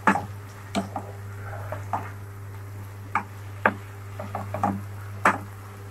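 Wooden spatula stirring a thick onion-tomato masala in a nonstick pan, knocking and scraping against the pan in irregular taps, over a steady low hum.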